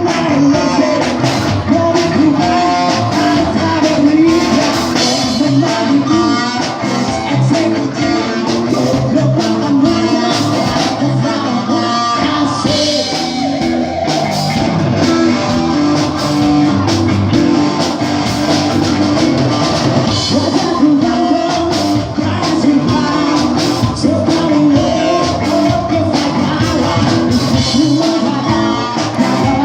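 Rock band playing a song with a singer, guitar and drum kit, at a sound check.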